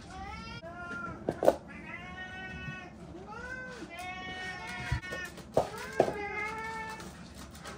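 Several house cats meowing over and over, their calls overlapping and rising and falling in pitch as they beg for food. A few sharp knocks come as food bowls are set down on the wooden floor.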